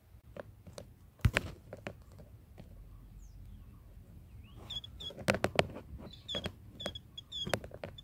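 Sharp knocks and thumps close to the microphone, a loud pair about a second in and a cluster a little after halfway. From about halfway there are short, high white-eye chirps, repeated a few times a second.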